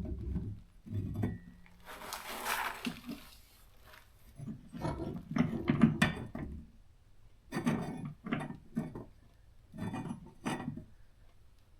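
Irregular knocks, clunks and clinks of shelf boards and hardware being handled and adjusted, with a short scrape a couple of seconds in and the busiest run of knocks around the middle.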